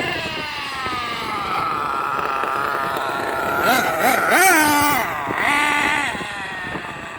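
Losi 8IGHT-T 1/8-scale RC truggy's nitro engine revving up and down as the truck drives around, with quick sharp revs about four seconds in and again near six seconds. Wind buffets the microphone underneath.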